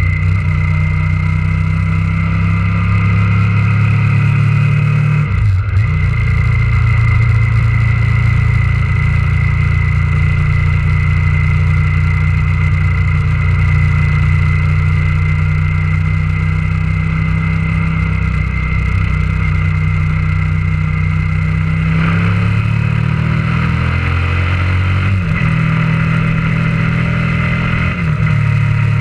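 Motorcycle engine running under way, heard close up from the bike itself. The engine note shifts about five seconds in, then climbs and shifts twice more near the end as it pulls through the gears.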